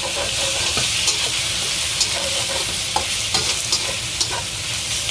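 Skin-on boneless chicken thigh pieces sizzling and frying in a hot wok over high heat, with a utensil scraping and knocking against the wok a few times as the pieces are turned over.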